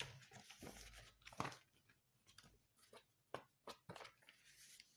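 A few faint, scattered mechanical clicks from a manual typewriter being handled, against a quiet room.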